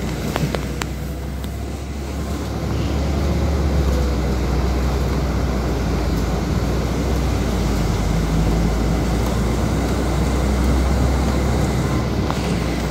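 Engine and road noise heard from inside a restyled LiAZ city bus: a steady low hum that gets louder about two seconds in as the bus drives off, then keeps running evenly.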